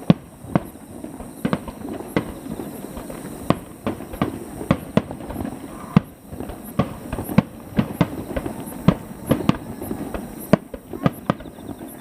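Fireworks display shells bursting: a rapid, irregular string of sharp bangs, about two a second, with a low rumble in between.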